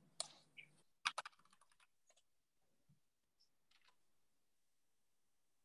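Near silence, broken by a few short sharp clicks: one about a quarter second in and a quick cluster of two or three just after a second.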